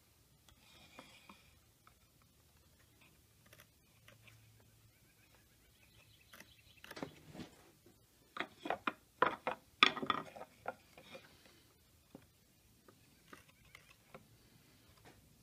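Faint scratching of a steel marking point on the wood, then a quick run of sharp wooden knocks and clacks about halfway through as the wooden try square is shifted and set down against the board.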